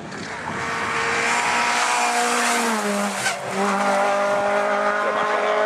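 Rally car engine at high revs with tyre and gravel hiss, growing louder over the first second. About three seconds in the engine note drops with a brief dip and a click, then a rally engine holds steady at high revs.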